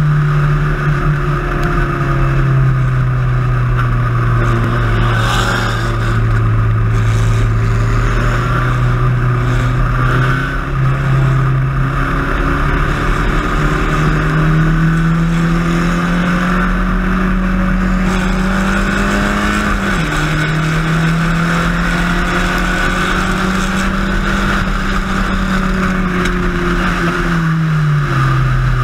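Spec Racer Ford race car engine running hard at speed. Its pitch holds, then climbs slowly, drops suddenly about 20 seconds in, and falls again near the end, over steady wind and road noise.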